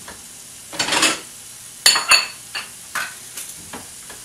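Sliced onions sizzling quietly as they sauté in butter in a frying pan, with a short rustle about a second in and then several sharp clinks and knocks of kitchen items being handled, the two loudest about two seconds in.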